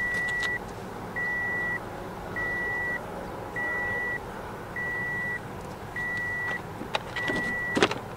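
Toyota Sienna's in-cabin warning chime beeping steadily with the driver's door open, a high beep about once every 1.2 s, seven times, with a few sharp clicks near the end.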